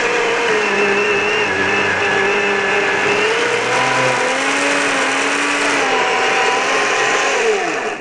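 Milwaukee M18 battery-powered chainsaw ripping lengthwise through a log, chain cutting wood. The motor's whine rises and falls in pitch as the load changes, then drops sharply in pitch near the end.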